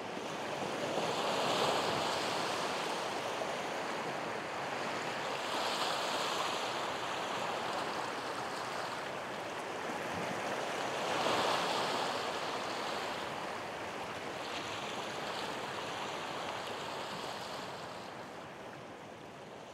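Sea waves washing onto a shore, swelling and falling back four times, a few seconds apart, and fading near the end.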